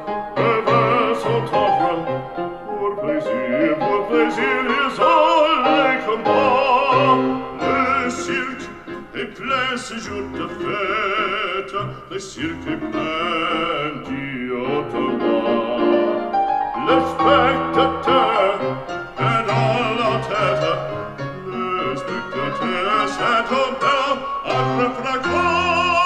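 Operatic singing with vibrato over piano, played back through a JBL Charge 3 portable Bluetooth speaker.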